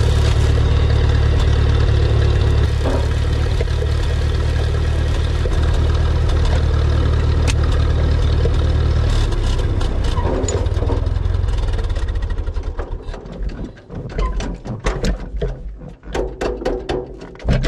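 Massey Ferguson 35 tractor engine running steadily. About nine seconds in it drops away, and over the last few seconds it runs as slow, uneven chugs.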